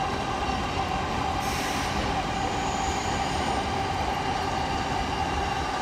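Stationary JR 185 series electric train standing at a platform: a steady hum with a thin steady whine from its onboard equipment, and a short hiss about a second and a half in.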